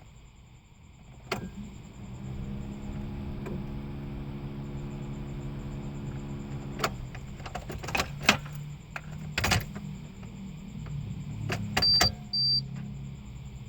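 Car controls and electrics: a click, then a steady electric hum for about five seconds that cuts off suddenly, followed by several sharp clicks and two short high beeps.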